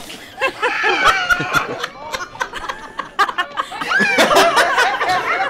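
Canned laugh track: a crowd of people laughing together, rising to a louder burst about four seconds in.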